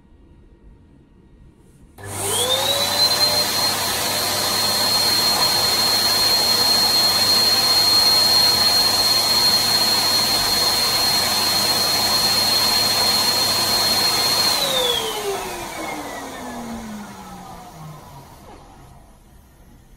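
Electric balloon pump switched on about two seconds in, its motor whining up to a steady pitch with a rush of air as it inflates a balloon through its hose. Near the end it is switched off and the whine falls in pitch as the motor spins down.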